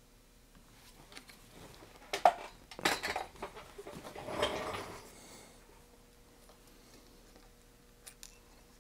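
Handling noise from fingers fitting a short piece of heat-shrink tubing over the parts on a small perfboard held in a vise. There are a few sharp clicks and light taps about two to three seconds in, then a brief rustle, over a faint steady hum.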